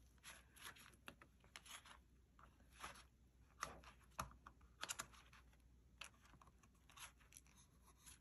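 Faint rustling of sticker sheets and paper as they are shuffled by hand in a clear plastic case, with scattered light taps and scrapes against the plastic, the clearest about halfway through.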